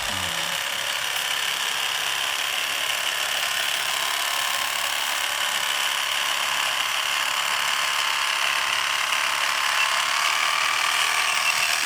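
A home-made RC boat's brushless motor and propeller drive running steadily, giving an even whirring hiss that holds at one level.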